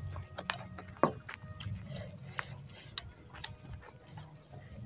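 Close-miked eating sounds: quiet chewing with scattered small clicks and taps as a spoon works through a beef-tendon meatball (bakso urat) in a ceramic bowl, the sharpest click about a second in.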